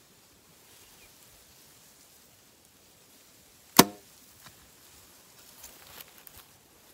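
Compound bow shot: a single sharp crack of the string releasing, with a brief ringing thrum after it, about four seconds in.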